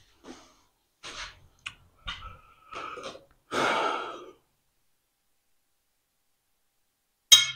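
Some rustling and breathy noise in the first half. Near the end comes one sharp, ringing clink of hand-held pieces of steel knocked together.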